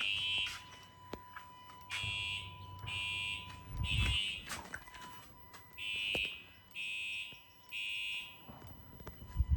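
Fire alarm sounder beeping in the temporal-three evacuation pattern: three short high-pitched beeps a second apart, then a pause, repeating. A faint steady tone runs underneath, and dull thumps come about four seconds in and near the end.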